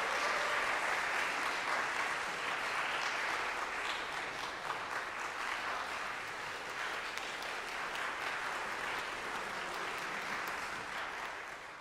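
Audience applauding steadily, dying away gradually near the end.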